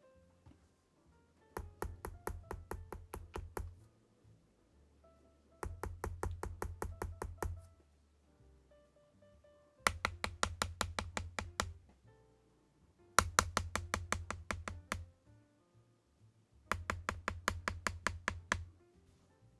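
Keystrokes on a YUNZII B75 Pro gasket-mounted mechanical keyboard with YUNZII Milk switches and PBT keycaps, in five bursts of about two seconds each, around five strokes a second. Quiet background music runs underneath.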